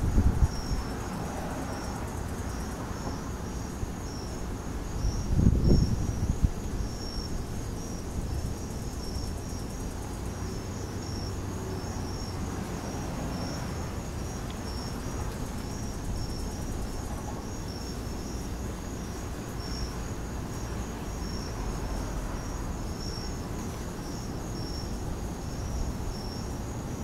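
Crickets chirping in a steady, evenly repeating high pattern, with low rumbles of wind buffeting the microphone at the start and about five to six seconds in.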